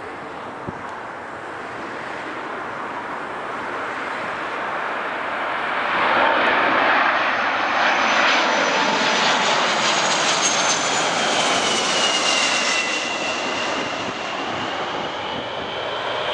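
Boeing 747-400's four Rolls-Royce RB211 turbofans on landing approach, a jet rush that swells to its loudest about six seconds in as the airliner passes close. A high fan whine slides slightly lower in pitch as it goes by.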